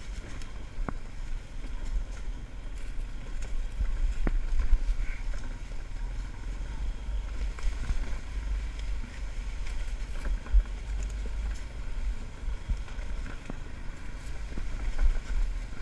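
ATV engine running as the machine rides along a rough trail, heard as a strong, uneven low rumble with occasional sharp knocks as it jolts over the ground.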